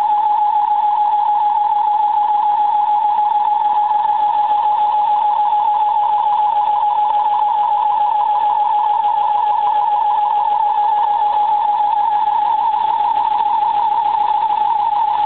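A steady high-pitched whine with a fast, even flutter, holding one pitch without rising or falling: the unexplained noise coming from a Ford Focus ST.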